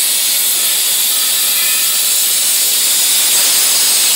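CNC air plasma torch cutting metal plate: a loud, steady, high hiss of the plasma arc and its compressed-air jet.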